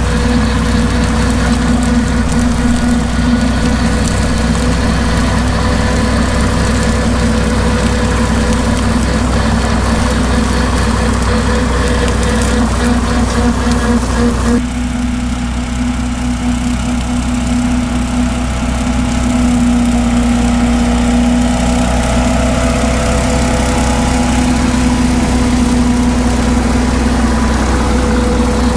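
Ford 8N tractor's four-cylinder flathead engine running steadily while it drives a PTO-driven brush hog rotary mower through dry grass. The sound changes abruptly about halfway through and grows louder a few seconds later as the tractor comes close.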